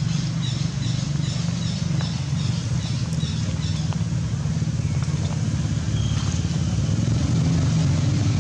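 A steady low engine hum, like a motor vehicle running nearby, with faint short high chirps repeating a few times a second in the first half.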